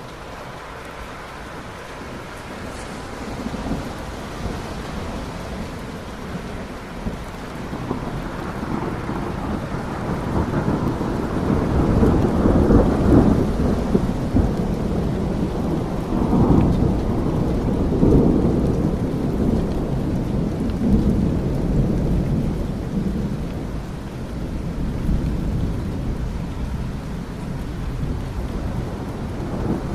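Steady rain with a long roll of thunder: a low rumble that swells over several seconds, is loudest around the middle, then eases off but keeps rumbling.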